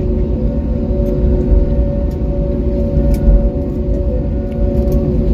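Cabin noise of an Airbus A321neo taxiing slowly after landing: a steady low rumble with the idling engines heard as a few steady hums. Faint light clicks come through now and then.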